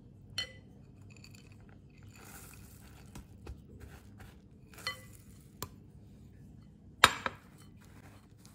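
Light scraping and scattered sharp clinks of glass: a wooden spatula stirring thick chocolate cookie dough in a glass bowl while chopped cashews are tipped in from a second glass bowl. The loudest clinks come about seven seconds in.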